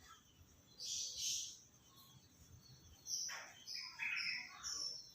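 A bird chirping: short high notes repeating a few times a second, starting about three seconds in. Two brief hissing sounds come about a second in.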